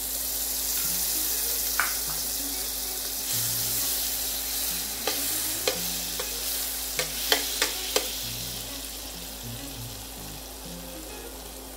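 Butter sizzling as it melts in a hot kadai, with a run of sharp clicks from stirring about halfway through. The sizzle eases off toward the end.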